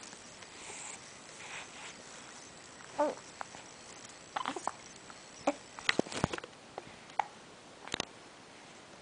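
A two-and-a-half-month-old baby hiccuping: a series of short, sudden hics at irregular intervals, starting about three seconds in.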